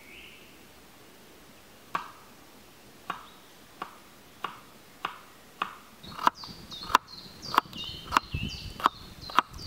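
Kitchen knife chopping carrot slices on a wooden cutting board: a steady run of sharp knocks about every two-thirds of a second, starting about two seconds in and growing louder.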